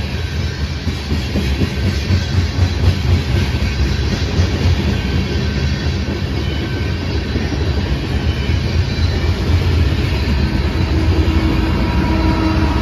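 Freight train of covered hopper cars rolling past with a steady low rumble and wheel clatter over the rail joints. Around ten seconds in, a distributed-power BNSF diesel locomotive in the train draws near, and its engine hum rises over the rumble.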